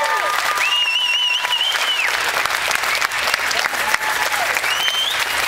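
Audience applauding at the end of a dance performance, with a high, warbling whistle about a second in and a shorter rising whistle near the end.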